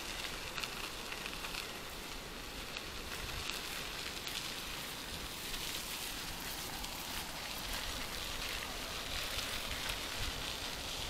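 Mountain bike tyres rolling over a sandy dirt path: a steady, crackly hiss.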